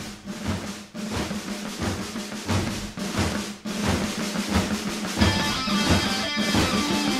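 Background rock music: a driving drum beat with snare and bass drum, with a band and guitar coming in about five seconds in.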